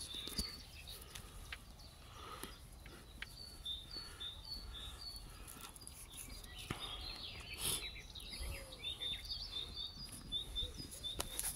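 A bird chirping over and over in short, high notes, a few to the second, with scattered clicks and rustles close by.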